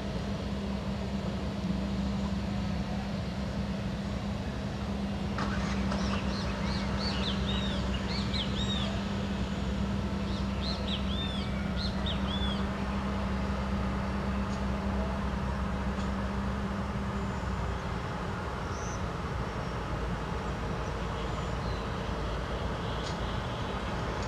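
Airbus A320neo's CFM LEAP-1A turbofans running at taxi power, a steady jet drone with a low hum in it that drops away about two-thirds of the way through. Birds chirp in a quick series over it for several seconds.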